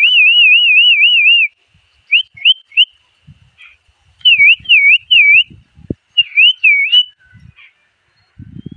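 A person whistling loud, high calls to summon dogs to their food: a fast warbling trill first, then three quick rising swoops, then a run of five short dipping notes in two groups.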